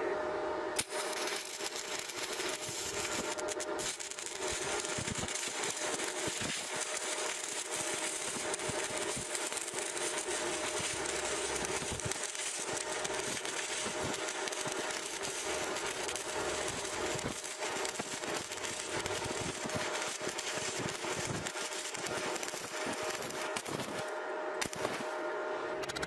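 Stick (SMAW) welding arc on 1.5 mm sheet steel, crackling steadily as the bead is run. The arc strikes about a second in, breaks off for about a second near the end, then strikes again, over a steady hum.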